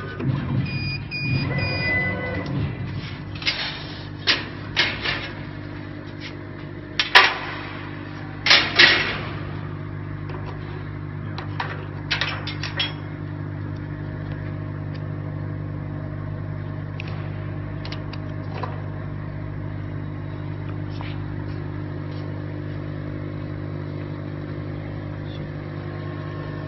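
Laser cutting machine standing idle with a steady low hum after the cut has ended. Several sharp knocks and clatters come in the first half.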